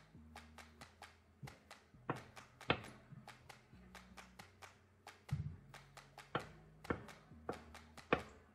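Chef's knife cutting raw beef into cubes on a wooden cutting board: repeated irregular taps of the blade on the board, several a second, some louder than others.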